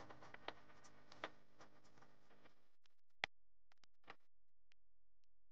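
A few separate computer keyboard keystrokes, single clicks spaced out while typing, the loudest about three seconds in, over faint background hiss that cuts out partway through.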